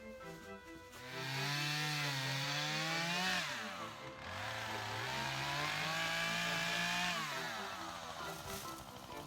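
Husqvarna chainsaw revved twice, each run lasting about two to three seconds, with the pitch sagging and rising as it cuts up the fallen tree top and falling away sharply as the throttle is released. Background music plays throughout.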